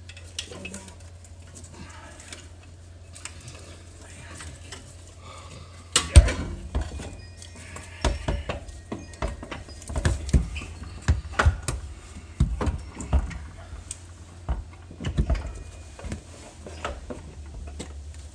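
Irregular metal clunks and knocks, starting with a hard clunk about six seconds in, as a five-speed manual transmission is shifted and jiggled against the rotary engine to line it up. A steady low hum runs underneath.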